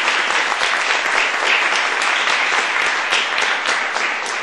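Audience applauding: many people clapping together in a dense, steady round.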